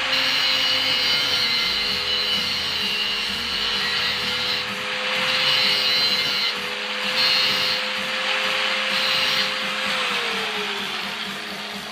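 Angle grinder cutting off the excess end of a bolt: the motor's steady whine under a grinding hiss that swells and fades as the disc bites. About ten seconds in it is switched off and its pitch falls as it spins down.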